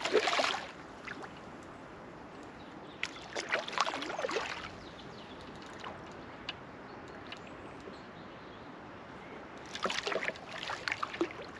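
Steady rush of a flowing river, broken by three short bursts of louder noise: near the start, around four seconds in, and near the end.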